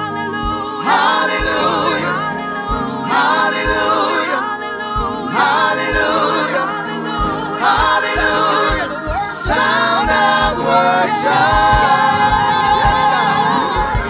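Gospel worship group singing together into microphones, in long held phrases over musical accompaniment with a steady low beat.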